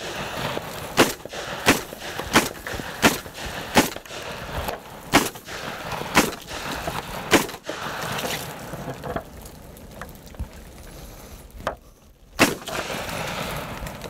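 AR-15-style semi-automatic 12-gauge shotgun firing a string of shots: five in quick succession about 0.7 s apart, then three more at wider intervals, and a last shot about twelve seconds in.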